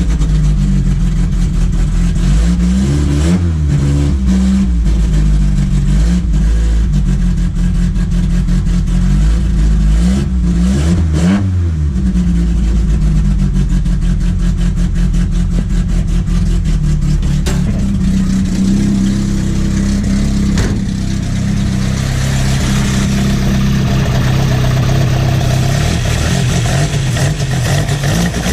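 Car engine with individual throttle bodies running and revving, its pitch rising and falling about three times.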